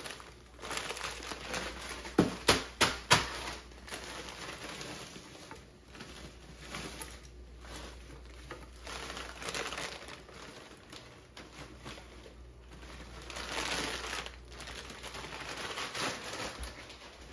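Stir fry being stirred in a frying pan, a rustling, scraping noise that rises and falls, with four sharp taps of a spoon about two to three seconds in.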